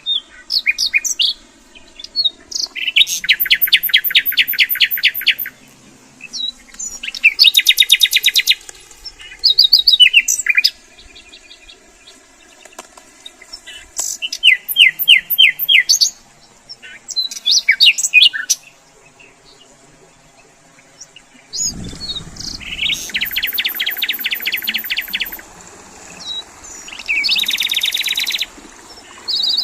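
Songbirds singing: rapid trilled phrases of about two seconds each, repeated every few seconds, with short high chirps between them. About two-thirds of the way through, a steady low background noise comes in under the song.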